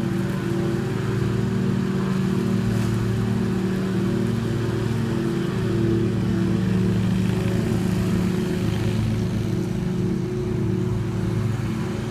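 Engine running steadily with an even, unchanging hum.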